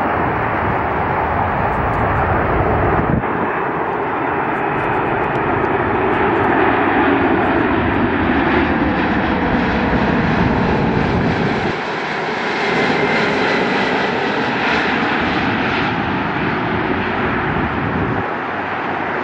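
Antonov An-124-100's four Progress D-18T turbofan engines running loud and steady as the heavy freighter passes low on landing approach, with an engine whine that slides down in pitch as it goes by. The sound changes abruptly twice where shots are cut together.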